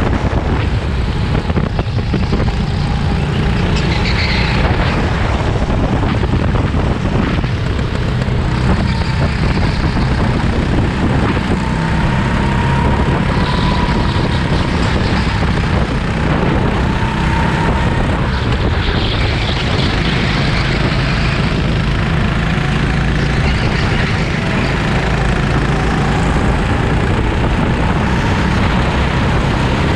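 Go-kart engine running steadily hard, its pitch drifting up and down a little with the throttle, under a dense rush of wind noise.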